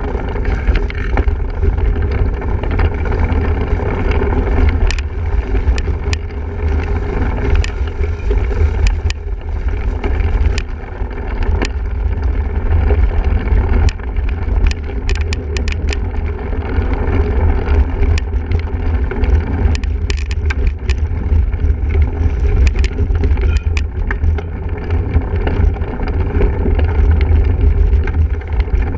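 Heavy wind rumble on the microphone and the rattle of a single-speed bicycle ridden hard over rough cyclocross ground, with scattered sharp clicks and knocks from bumps.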